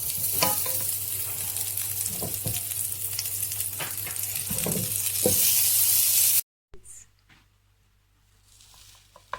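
Butter sizzling in a hot frying pan, a steady loud hiss with a few light clicks. It cuts off abruptly about six seconds in, and only faint sound is left after that.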